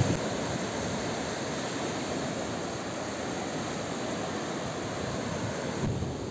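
Steady rushing of moving water. The hiss thins out suddenly near the end.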